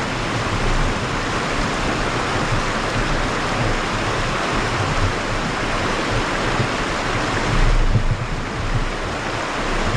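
Rushing water of river shoals: a steady, loud rush of current over rocks, with a few low thumps about eight seconds in.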